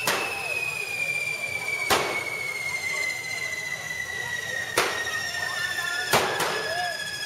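Correfoc fireworks: one long pyrotechnic whistle that slowly falls in pitch, with sharp firecracker bangs about five times, the last two close together near the end.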